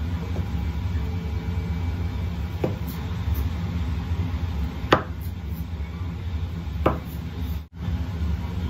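Kitchen knife cutting slices off a datemaki roll, knocking on the wooden cutting board three times about two seconds apart, the middle knock the loudest, over a steady low hum.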